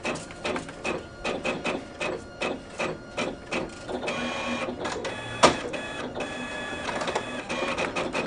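Office photocopier running through a copy cycle: a fast, rhythmic clicking of its mechanism, joined from about four seconds in by a steady whir with high tones, and one sharp clack about five and a half seconds in.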